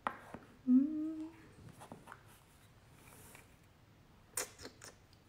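A short hum in a woman's voice, pitched slightly upward, about a second in. Then a quick run of sharp clicks near the end.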